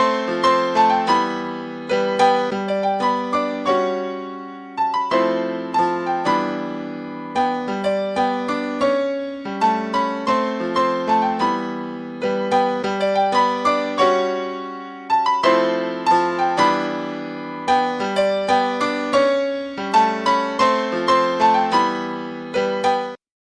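Solo keyboard with a piano-like sound playing a repeating pattern of chords and broken-chord notes, each struck and left to ring out. It cuts off abruptly near the end.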